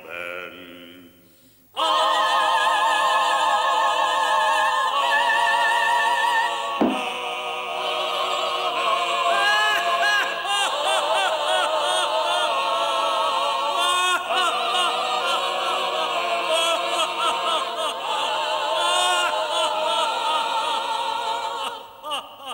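A mixed choir sings in an operatic style: sustained chords with heavy vibrato, breaking in loudly about two seconds in after a quieter vibrato-laden voice. A short thud sounds a few seconds after the choir comes in.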